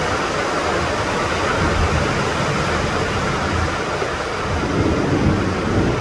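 Heavy rain pouring steadily onto tiled roofs, with a low rumble of thunder underneath that swells about five seconds in.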